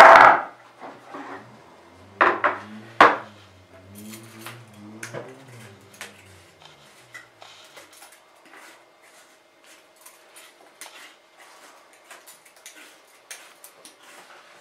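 Three sharp knocks on a husked coconut's hard shell, the first the loudest, followed by faint scattered clicks and scraping of a knife blade working the white flesh away from the inside of the shell.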